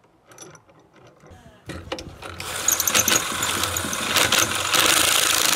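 A few light clicks of handling, then about two seconds in a power drill starts up and runs steadily, boring pocket holes through a Kreg jig into a wooden board.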